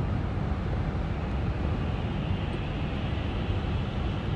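Steady road and engine noise of a car driving, heard from inside the cabin, with a deep rumble.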